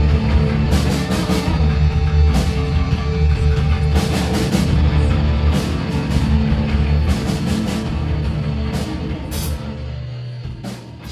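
Rock band playing: electric guitar, bass and drum kit with repeated cymbal crashes. The music fades out over the last few seconds.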